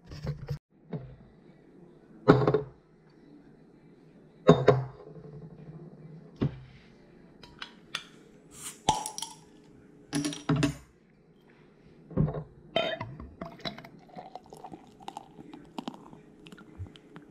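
A series of sharp knocks and glass clinks as a ceramic sauce bowl and glasses are set down on a hard countertop, then beer pouring into a glass near the end.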